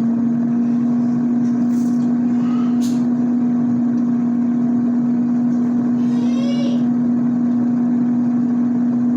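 Steady, loud electric motor hum with a strong low tone, such as a kitchen fan or appliance running. A short high chirp comes about six seconds in.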